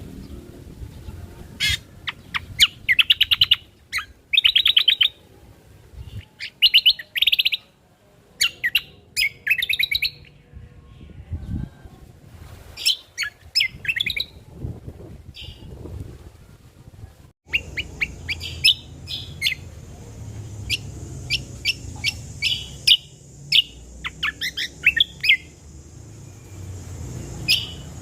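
Cucak kombo (kecial kombo) songbird singing: short bursts of rapid chirps and buzzy trills, one after another with brief pauses. A little after halfway the recording cuts and a steady high hiss joins the song.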